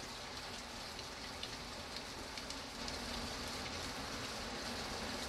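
Steady rain falling, an even hiss with scattered sharper drop ticks; it grows slightly louder about three seconds in.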